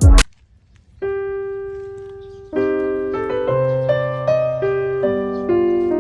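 Background piano music. After a short hush, a single held note rings out about a second in, then a flowing line of overlapping notes begins a second and a half later. Just before the hush, the tail of a louder previous track stops abruptly.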